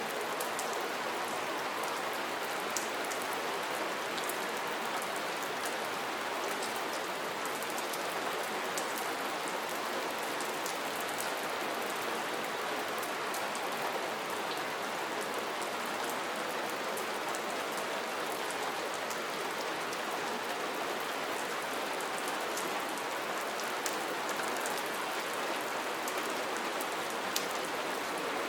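Steady soft rain falling, an even hiss with many small scattered drop ticks.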